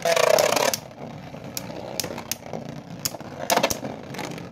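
Two Beyblade Burst spinning tops, one a Master Diabolos spinning left, whirring and scraping in a plastic stadium. A loud scraping clash comes at the start, then sharp clicks as they strike each other several times, loudest about three and a half seconds in.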